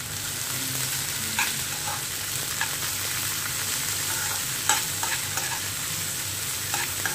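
Sliced onions, green chillies and curry leaves sizzling in hot oil in a frying pan as they are sautéed, stirred with a steel spoon that clicks and scrapes against the pan a few times.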